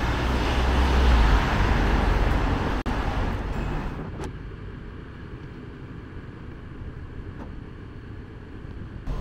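Road traffic noise: a steady rush of passing cars. It drops suddenly about three and four seconds in to a quieter, steady street hum.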